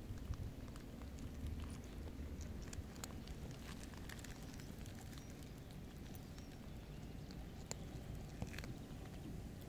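A cat chewing dry kibble: irregular small crunches and clicks over a steady low background rumble.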